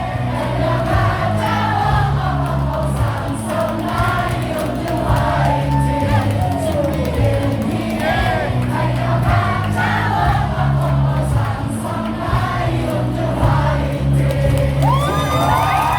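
Baseball stadium crowd singing a cheer song together over loud amplified music with a steady, heavy bass. Near the end, rising shouts stand out from the singing.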